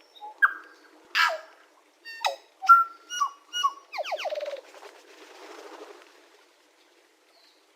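A tui singing a varied phrase of ringing whistled notes mixed with a harsh rasping note and clicks, then a fast falling trill. The phrase ends in a breathy wheeze.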